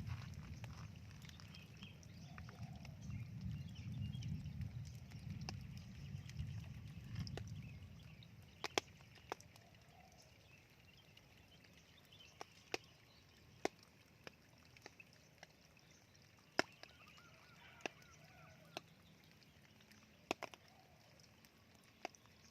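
Scattered raindrops dripping, sharp ticks at irregular intervals about a second apart, over a low rumble that fades out about eight seconds in. Faint bird calls come and go.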